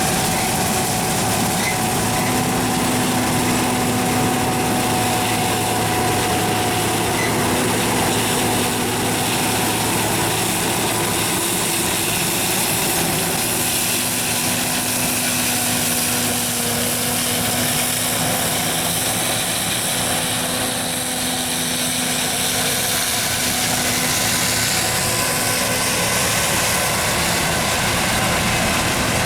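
John Deere 9400 combine running steadily: diesel engine and machinery drone, with a few steady whining tones over it.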